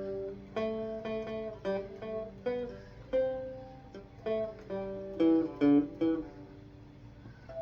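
Three-string cigar box guitar played through an amp, picking out a slow single-note melody; each plucked note rings and fades, with a short lull near the end.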